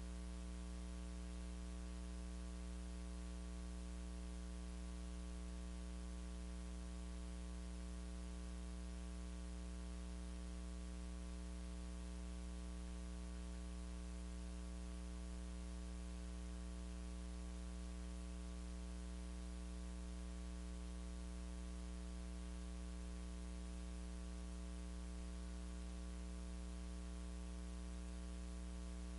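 Steady electrical mains hum with a ladder of even overtones over a constant hiss, unchanging throughout. No singing or instruments are heard.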